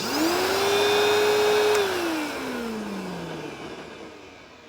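1990s Eureka Whirlwind bagless self-propelled vacuum switched on with a click, its motor speeding up to a steady whine. After almost two seconds it is switched off and winds down, the pitch falling as it fades.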